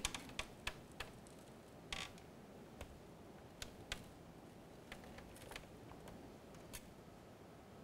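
Faint small clicks and scrapes of fingers and nails working at a glued rubber foot on a plastic router base, picking it loose to reach a hidden screw. The clicks are scattered and irregular, with a brief scrape about two seconds in.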